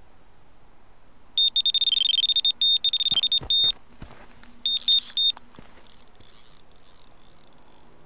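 Electronic carp bite alarm sounding a rapid string of high beeps for about two seconds, then a few more beeps a second later: a carp taking line on a run. A few knocks sound among the beeps.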